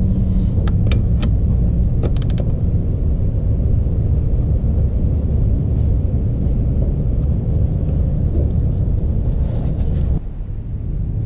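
A steady low rumble that drops off suddenly near the end, with a few quick sharp clicks in the first couple of seconds from a 3/8-inch-drive ratchet turning the 17 mm oil drain bolt.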